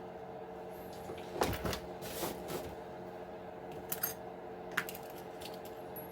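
Small hard parts of an RC truck being handled during disassembly: a short run of clattering knocks, then a few sharp clicks, over a steady low hum.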